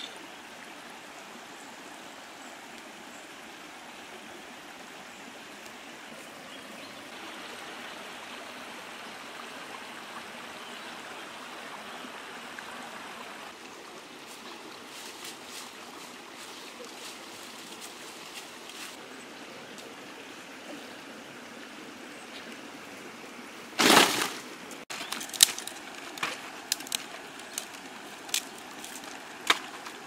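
Shallow creek water running steadily over rocks. About 24 seconds in there is one loud sudden crash, followed near the end by scattered sharp clicks and knocks.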